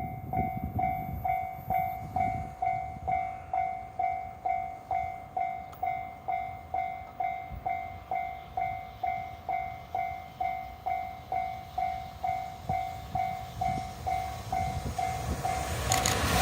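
Japanese railway level-crossing warning bell dinging steadily, about two strokes a second. Under it runs the low rumble of an approaching train, which swells into the noise of the train reaching the crossing at the very end.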